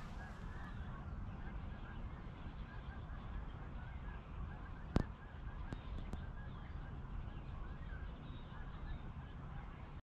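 A distant flock of geese honking continuously and faintly over a low rumble. One sharp click comes about halfway through, with a few fainter clicks just after it.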